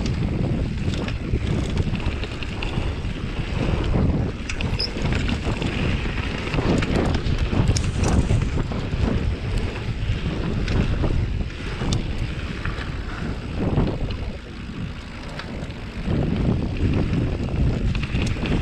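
Wind buffeting the microphone of a camera riding on a mountain bike, with the rumble of tyres on a dirt trail and scattered short rattles and clicks from the bike.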